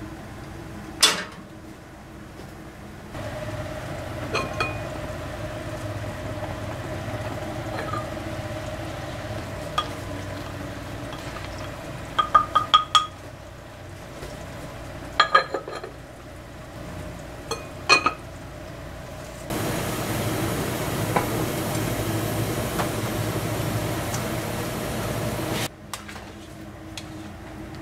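Chopsticks, cups and pots of stainless steel clinking during serving: single sharp clinks and a quick cluster of several in the middle. In the second half, a louder steady hiss lasts about six seconds.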